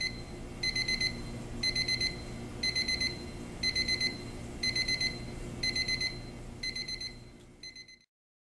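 Westclox 22690 electric alarm clock's alarm beeping: a high electronic tone in short bursts of rapid beeps, repeating about once a second, fading out near the end.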